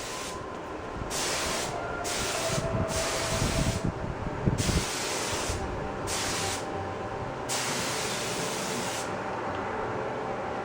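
Compressed-air paint spray gun spraying automotive paint in repeated passes: a hiss that starts and stops as the trigger is pulled and released, each burst lasting from about half a second to a second and a half.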